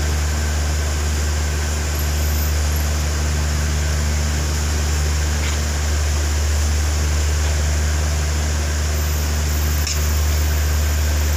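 Steady low rumble with a hiss from the gas burner running under a large aluminium wok, unchanging throughout.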